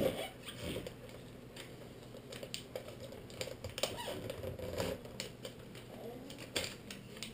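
Scattered light clicks and taps of hands pressing and working a new membrane keypad onto a microwave's control panel, with faint squeaky fussing from a small child in between.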